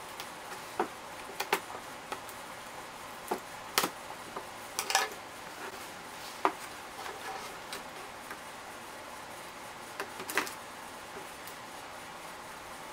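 Irregular sharp clicks and snips of small scissors cutting the tape on a cardboard toy box, with the box's cardboard knocked and handled between cuts.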